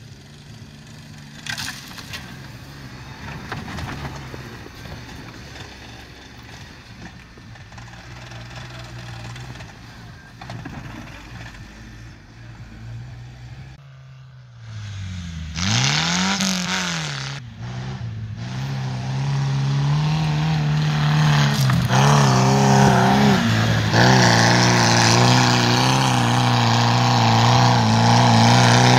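An off-road SUV's engine runs steadily as it drives along a muddy track. After a cut about halfway, a tube-frame off-road buggy's engine revs up and down, then runs steadily louder as the buggy drives through the mud.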